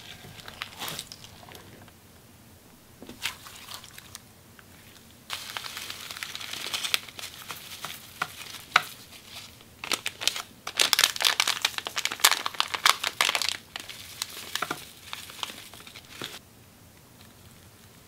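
Clear slime packed with fimo fruit slices being pressed, stretched and folded by hand, giving crackly bubble pops and sticky clicks in bursts. It is loudest about ten seconds in, when the slime is worked into foil confetti glitter.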